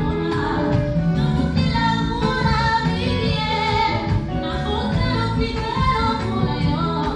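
Live band music: acoustic guitar, electric guitar and keyboard playing together, with a singing voice carrying the melody.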